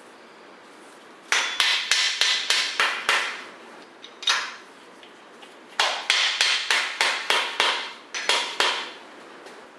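A mallet tapping the main bearing caps down into their seats on a 440 Mopar big-block. The taps come about four a second in two runs of a couple of seconds each, with a single tap between them.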